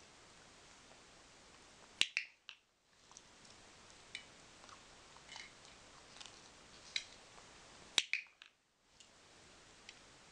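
A dog-training clicker clicks twice, about six seconds apart, each click followed by a few fainter ticks. Faint scattered ticks fall in between.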